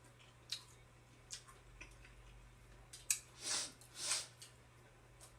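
Eating stone crab: a few sharp clicks of crab shell cracking, with two longer noisy swells about three and a half and four seconds in, over a faint low hum.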